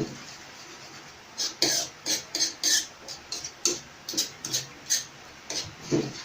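A metal utensil scraping and clicking against a pan while stirring thickened gravy: a run of short, sharp scrapes at an uneven pace, about two a second.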